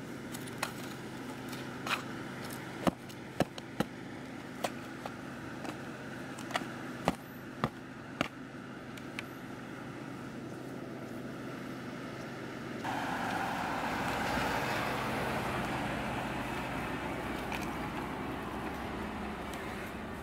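An AR-15 magazine being handled: a dozen or so sharp clicks and taps over the first eight seconds. About two-thirds of the way through, a steady rushing noise starts abruptly and lasts to the end.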